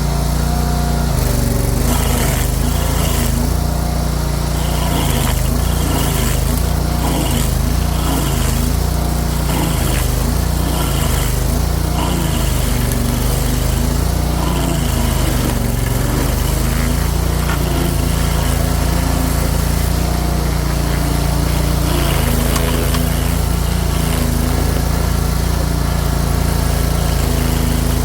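Stump grinder's gas engine running steadily, its pitch dipping and recovering as it takes load, with a hiss of the cutter coming and going roughly once a second as it grinds down a small stump.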